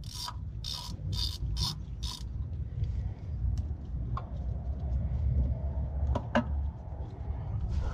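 Hand socket ratchet clicking in short back-and-forth strokes, about two a second, as a 10 mm bolt is backed out. After about two seconds the ratcheting stops, leaving a low rumble and a few light clicks.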